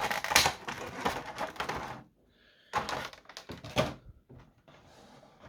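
Cardboard Funko Pop box and its plastic packaging being handled: a busy run of clicks, taps and rustles, then a short pause and a few separate knocks.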